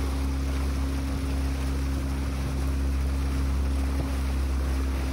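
Water rushing and splashing along the hull of a moving motorboat as it cuts through the water, over the steady low hum of the boat's engine.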